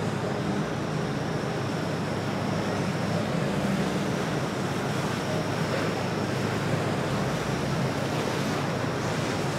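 Steady rush of water and wind with a low motor-yacht engine rumble underneath, from a cabin cruiser moving slowly along the river; wind noise on the microphone adds to the rush.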